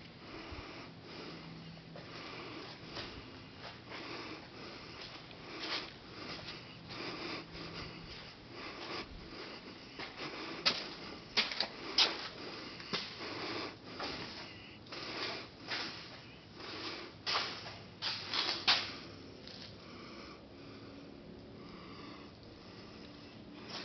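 Footsteps and scattered sharp clicks on a bare concrete floor in an empty, unfinished room. They are sparse at first, come thicker and louder in the middle, then die away near the end.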